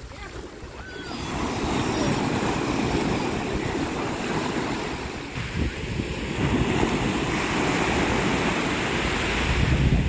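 Small surf breaking and washing up over a sandy beach, a continuous rushing of water that swells and eases, loudest near the end.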